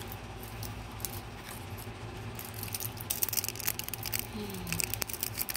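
Crinkling and tearing of a Toblerone bar's cardboard box and foil wrapper as it is opened: scattered crackles at first, growing into a dense run of crinkly clicks about halfway through, over a low steady hum.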